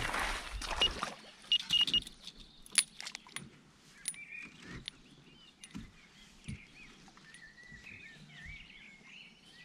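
Fishing gear being handled, with clattering and rustling, mixed with a few short, high electronic beeps in the first two seconds. This fits a carp bite alarm sounding as a fish takes. Then come a few sharp clicks and faint birdsong.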